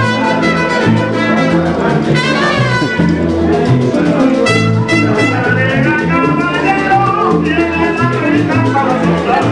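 Lively salsa-style Latin music playing with a steady beat.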